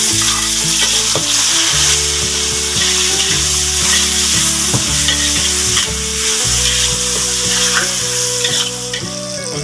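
Sliced shallots and tomatoes sizzling in hot oil in a wok, with a spatula stirring and scraping through them.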